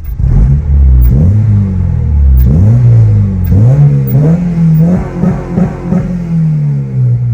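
Acura RSX Type-S's 2.0-litre K20 four-cylinder revved in a series of quick blips, the pitch rising and falling back each time. It runs through a Skunk2 Alpha header, a test pipe in place of the catalytic converter and an HKS Hi-Power cat-back, and is heard from inside the cabin.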